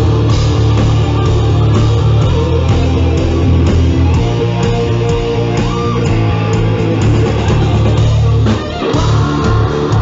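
Heavy metal band playing live at full volume: electric guitar prominent over bass guitar and drums, with a short drop in the low end near the end.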